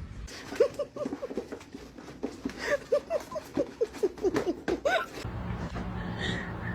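A quick series of short, high, rising-and-falling voice-like calls, several a second, which stop about five seconds in and give way to a steady low hum.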